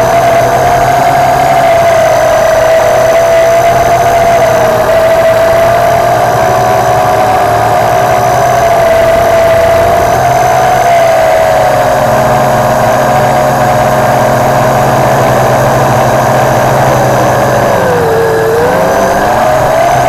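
WLToys V262 quadcopter's motors and propellers whining steadily, heard up close from a camera strapped to its frame. About eighteen seconds in the pitch dips briefly as the motors slow, then rises back.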